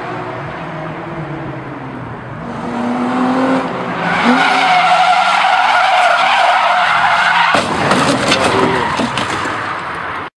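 A car's engine revving up and down, then its tyres squealing loudly for several seconds as it slides sideways around a corner. The squeal turns rougher and more broken near the end, then the sound cuts off abruptly.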